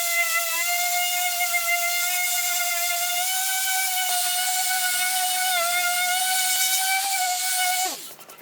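Powerhouse PHM 9035 rectangular orbital sander running, a steady high whine with a hiss over it. It is switched off near the end, its pitch dropping as it winds down. The owner finds it much quieter than his Ozito orbital sander.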